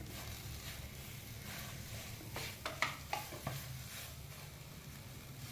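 A wooden spatula stirs and scrapes grated-radish paratha filling around a nonstick frying pan, mixing in curry leaves and mint. A few sharper scrapes and taps against the pan come in a cluster around the middle.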